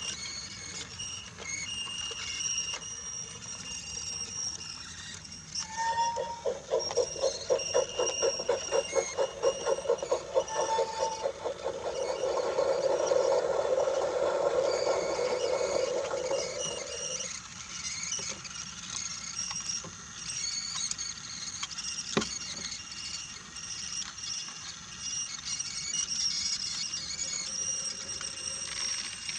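Brio wooden toy train rolling over wooden track, with a mid-pitched hum and rapid rattle from about six seconds in that smooths out and stops after about eleven seconds. A single sharp click comes later.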